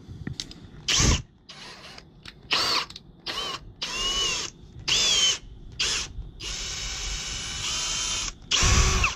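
Power drill run in about eight short trigger bursts, the motor whine rising and falling with each squeeze, with one steadier run of about two seconds near the end.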